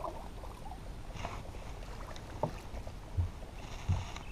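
Low wind and water noise aboard a small fishing boat, with a few light knocks in the second half.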